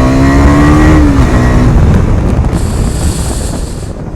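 KTM Duke single-cylinder engine running with the dB killer removed from its exhaust; the engine note holds, then falls about a second and a half in as the throttle closes, and the sound eases off.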